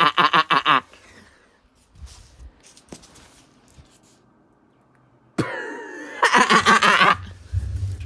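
A man's voice making wordless, pulsing sounds in two bursts, one ending just under a second in and another starting about five seconds in, with faint clicks in the quiet between.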